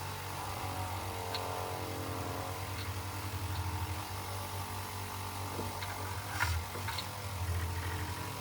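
VEVOR mini bench grinder / buffer polisher motor running steadily with a low hum while a piece is held to the polishing wheel. A few light clicks come through about midway and near the end.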